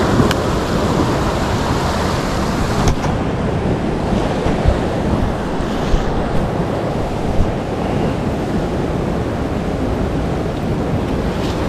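Steady wind buffeting the microphone over ocean surf, with a few low knocks.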